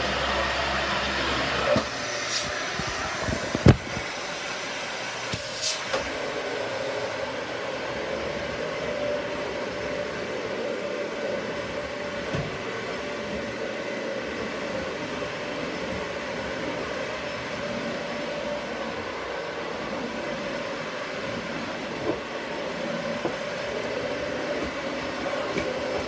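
Dyson Ball Animal 2 upright vacuum cleaner running steadily, a little quieter after about two seconds. There are a few sharp knocks in the first six seconds, the loudest about four seconds in. A steady whine holds from about six seconds on.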